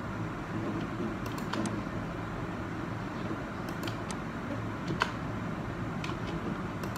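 A few sharp computer mouse clicks, some in quick pairs, over a steady low hum.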